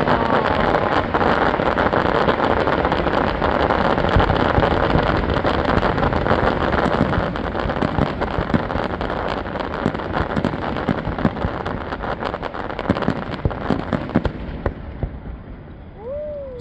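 Fireworks display: dense crackling from many small bursts, like rain on a surface, with scattered louder bangs; it thins out and fades over the last few seconds.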